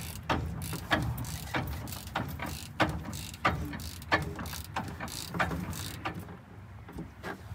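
Hand ratchet clicking in steady strokes, about one and a half a second, over a low steady hum, typical of the Detroit Diesel 6-71 being turned over by hand.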